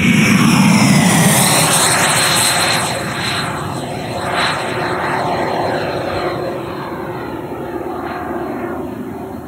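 Electric ducted-fan RC jet (JETFAN-120 PRO fan) whining as it flashes past low, its pitch dropping as it goes by about a second in, then fading steadily as the jet climbs away.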